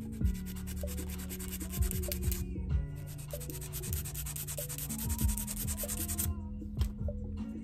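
Rapid back-and-forth scraping of a nail file on a plastic false nail tip as it is shaped down to size, over soft background music; the filing stops about six seconds in.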